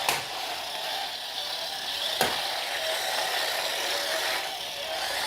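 Remote-control robot toy car's small electric motor and plastic gears whirring steadily, with two sharp clicks, one at the start and one about two seconds in.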